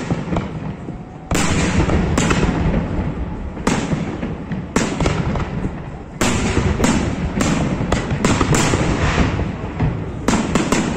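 Aerial firework shells bursting in a rapid series of loud bangs, about one a second, over a continuous low rumble.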